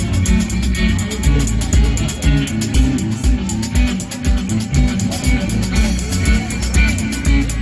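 A live band playing at a sound check: guitar and bass over a steady beat.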